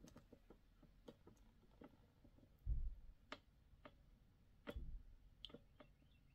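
Near silence with faint scattered clicks and two soft low thumps, about three and five seconds in: handling noise.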